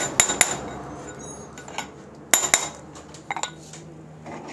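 Hammer blows on a metal drift, driving a steering-head bearing cup (handle cone) down into the head tube of a Honda CG125 to seat it. Sharp metallic knocks with a short ring come in a quick run of three at the start and another run about two and a half seconds in, followed by a few lighter knocks.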